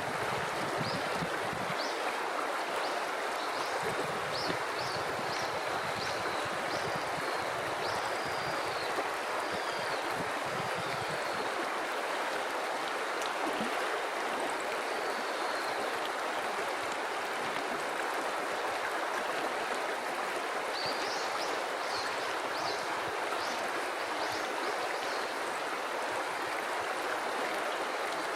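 River water flowing steadily. Two runs of short high chirps sound over it, one in the first third and one near the end.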